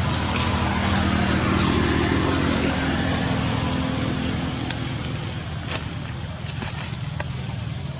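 A motor vehicle engine running steadily, a low hum with a faint high steady tone above it and a few soft clicks.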